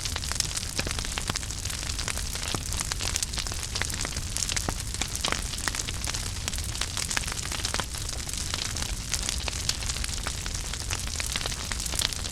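Wood fire crackling in a fireplace, with many small irregular pops and snaps over a low steady rumble.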